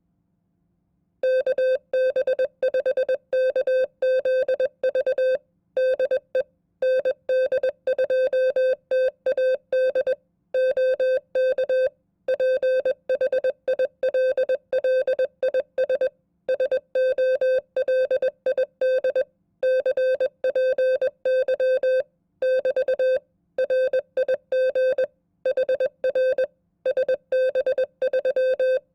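Morse code (CW) sent at 20 words per minute: a single steady beep-like tone switched on and off in rapid dots and dashes, with short breaks between words, the copy of a sample amateur-radio contact. It starts about a second in.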